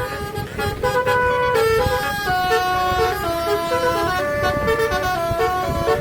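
Telolet horn on a PO ASH Subang tour bus playing a melody: a string of held horn notes stepping up and down in pitch, several tones sounding together.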